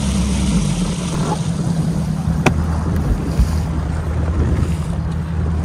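Bass boat under way: a steady low outboard-engine hum with wind buffeting the microphone and water noise, and one sharp click about two and a half seconds in.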